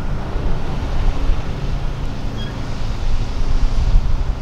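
Road traffic, cars and pickup trucks, driving past, mixed with steady wind noise on the microphone.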